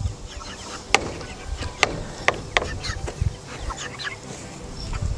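A flock of young Cornish Cross and Red Ranger meat chickens clucking and cheeping softly, with a few sharp clicks and low thumps in between.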